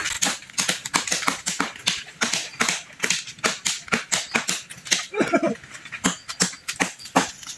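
Rapid, irregular sharp clicks and snaps, about three or four a second, with a short rising-and-falling pitched sound about five seconds in.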